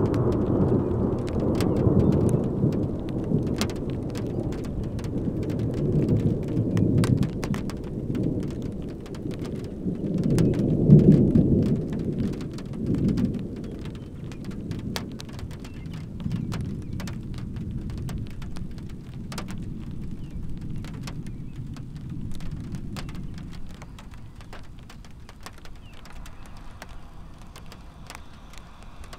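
Thunder rumbling in several rolling swells over steady rain, with many sharp raindrop ticks close by. The loudest rumble comes about eleven seconds in, and the thunder dies away over the last few seconds, leaving the rain.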